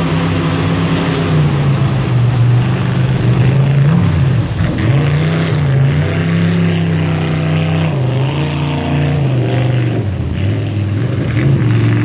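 Racing jet boat engine running hard at high revs, its pitch dipping and climbing again a few times as the boat works through the rapids, over the steady rush of whitewater.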